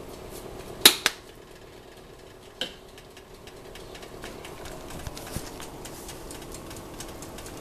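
Two sharp clicks from a plastic spice shaker, about a second in and again near three seconds, as its flip lid is snapped and it is set down. Eggs frying in a pan give a light, steady crackle over a constant hum.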